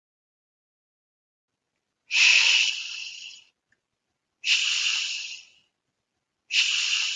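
A voice pronouncing the isolated /sh/ sound, a long hushing 'shhh', three times, each about a second and a half long with a sharp start that tails off. This is the 'sh' sound that the letters CH can make, as in 'chef' and 'machine'.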